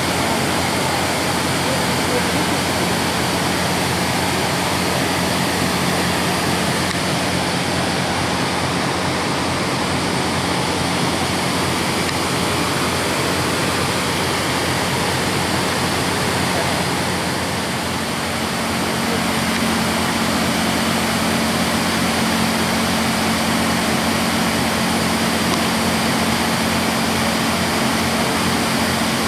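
Diesel-hauled passenger train under way: a steady rush and rumble of running noise with a constant engine hum. The hum steps up a little in pitch about two-thirds of the way through, after a brief dip in level.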